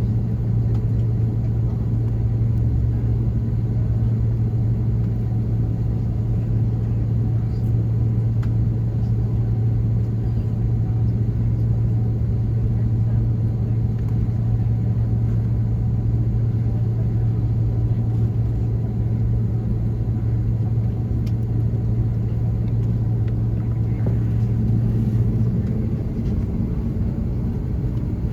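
Cabin noise aboard an Airbus A330-200: a steady low engine hum over a rush of air, holding level without rising or falling.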